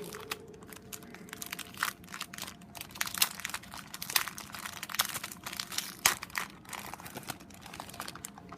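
Packaging crinkling and rustling as it is handled and worked open, in dense, irregular crackles.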